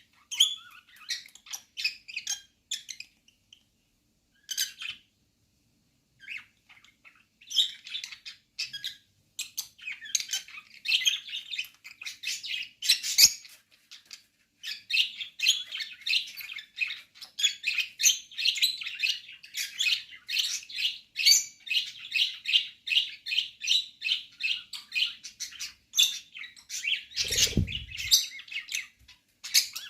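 A pair of small pet parrots chattering in rapid, high-pitched chirps, sparse at first and then near-continuous for the second half, as the pair mates. Near the end there is a brief low rumble.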